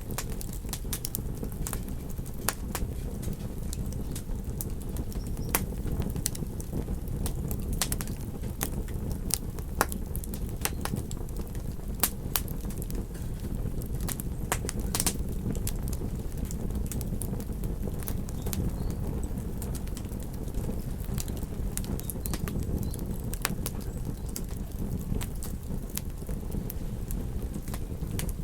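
Wood fire crackling: frequent irregular sharp pops and snaps over a steady low rumble.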